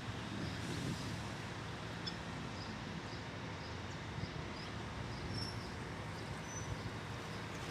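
Diesel engines of a Loram ballast-cleaner train running with a low, steady rumble, with faint bird chirps.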